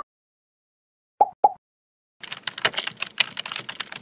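Two short pops, then rapid computer-keyboard typing clicks starting a little over two seconds in: a typing sound effect for text being entered into a search bar.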